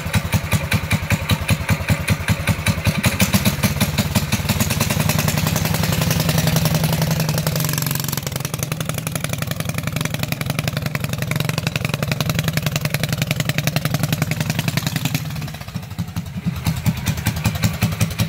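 Predator 212cc single-cylinder four-stroke engine on a CVT mini bike, running with the choke on. It pulses at low speed at first, picks up about four seconds in as the bike pulls away, runs steadily, then drops back briefly near the end before picking up again.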